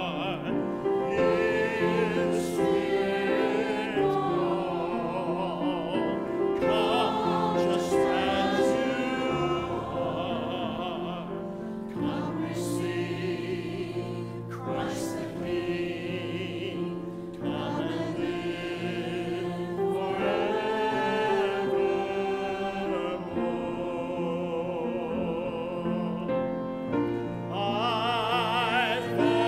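Church choir singing a hymn with a song leader on a microphone. Long held notes with vibrato.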